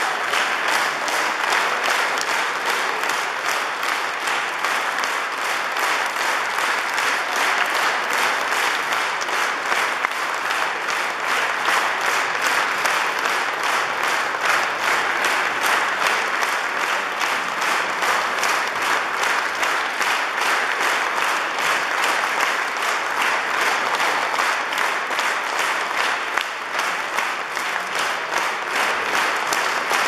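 Audience applauding steadily, a dense unbroken clatter of many hands clapping.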